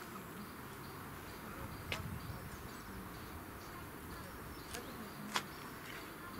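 Quiet background with a faint, thin high tone pulsing on and off about one and a half times a second, broken by a few short, sharp clicks, the loudest about two seconds in and again near the end.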